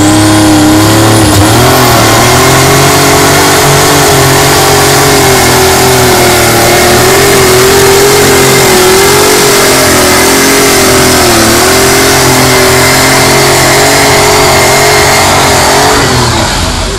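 Hot-rod John Deere pulling tractor's engine running flat out under load as it drags the weight-transfer sled down the track. The note climbs right at the start, holds high with a slight waver, then drops away near the end as the pull finishes.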